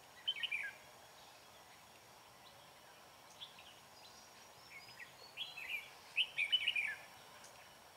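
Red-whiskered bulbuls singing: a short burst of song near the start, then a longer run of phrases from about five to seven seconds in, over a steady faint hiss.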